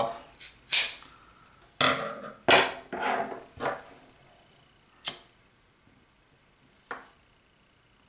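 Scissors cutting 550 paracord and being handled: a string of short, sharp snips and clicks, most of them in the first four seconds, then two more spaced out toward the end.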